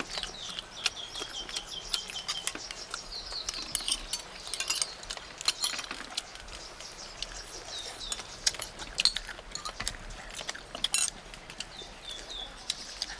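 A metal spoon clinking and scraping against a stone bowl and a ceramic plate, in many short, sharp clicks. Birds chirp repeatedly behind it, most in the first few seconds and again near the end.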